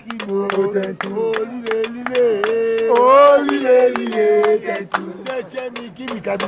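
A man singing a Lingala song with a rising swoop in his voice about three seconds in, over a steady beat of sharp percussive hits.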